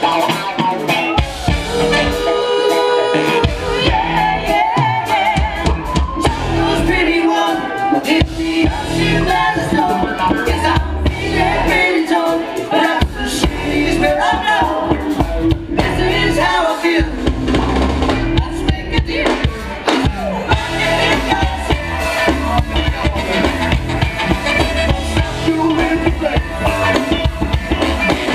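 Live funk band playing with drum kit and singing, heard from within the crowd.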